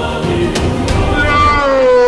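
Music laid over the picture, ending in a long held note that slides slightly down in pitch over the last second.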